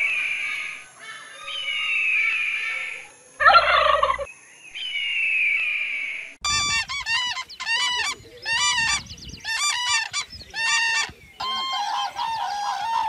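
Bird calls: a descending whistled call repeated three times, with one brief loud harsh burst in between. About six seconds in, this gives way to a rapid series of nasal honking calls of waterfowl.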